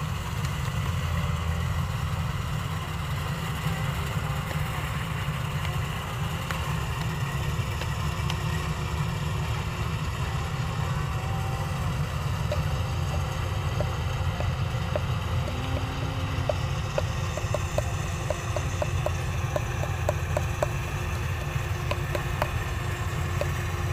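Kubota DC-93 rice combine harvester's diesel engine running steadily as the machine cuts and threshes the crop, a deep continuous drone. A run of faint quick ticks comes in over the second half.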